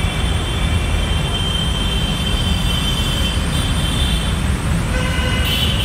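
Road traffic stopped in a jam: a steady low rumble of idling motorbike and car engines close by. A horn-like tone sounds near the end.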